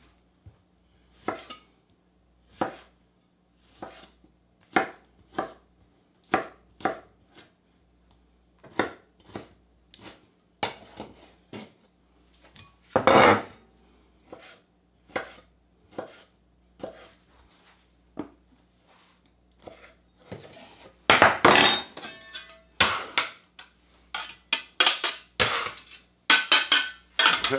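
Kitchen knife chopping on a cutting board: separate strikes, one or two a second, then faster, louder runs of chopping near the end.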